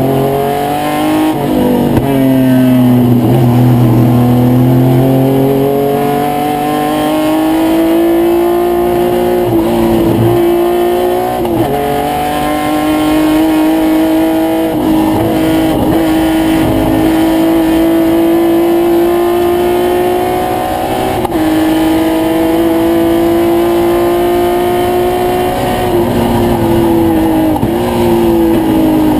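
1972 Triumph GT6's straight-six racing engine at full race pace, heard from inside the cabin. The revs climb and fall with several gear changes, dropping sharply at each shift, with one long, slow climb through the middle.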